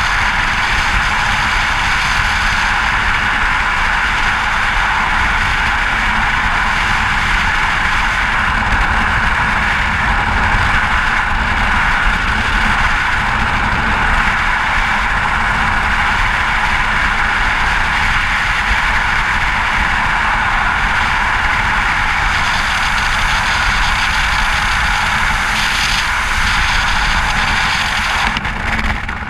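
Loud, steady rush of freefall wind buffeting a helmet-mounted GoPro, with a low rumble beneath. It eases off slightly just before the end.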